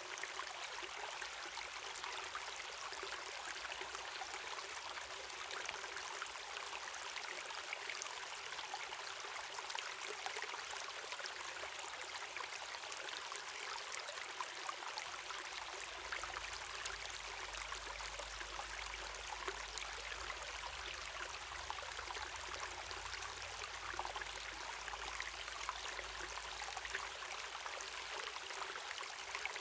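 Running water from a stream or waterfall: a steady, hissing rush, mostly in the upper range, with almost no deep rumble.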